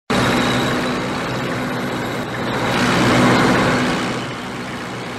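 Tank engine sound effect: a steady engine rumble with a low hum, swelling about three seconds in and then easing off.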